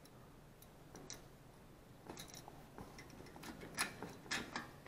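Faint, scattered light clicks and metallic ticks of a Honda GXV160 carburetor and its wire throttle-linkage rods being worked loose by hand, with a few sharper clicks in the second half.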